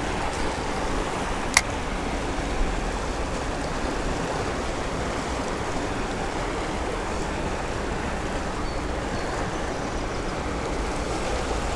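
Steady rushing of a creek's cascading water, with one sharp click about one and a half seconds in.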